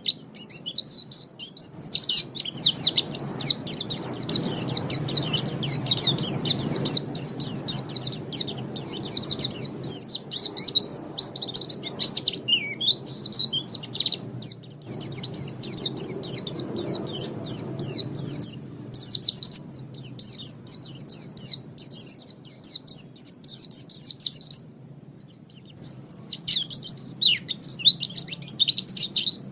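White-eye (pleci) singing a long, fast, high-pitched twittering song, an unbroken stream of rapid chirps. It pauses for about a second near the end, then resumes.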